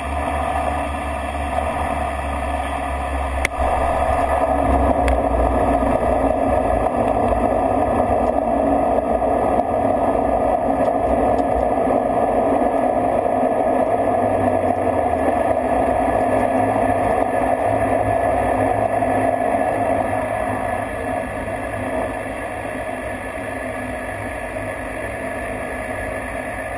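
Flight-deck noise of a Dash 8-Q200 twin turboprop landing: a sharp thump about three and a half seconds in as the wheels touch down. The engine and propeller noise then grows louder and holds through the rollout, easing off in the last few seconds as the aircraft slows on the runway.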